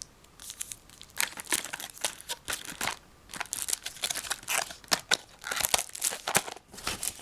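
Packaging being handled and crumpled, a quick run of crinkles and crackles after a quieter first second.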